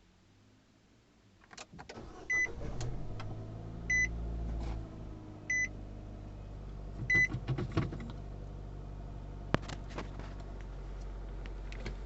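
Four short electronic beeps, evenly spaced about a second and a half apart, over a steady low hum that starts about a second and a half in, with scattered clicks and knocks.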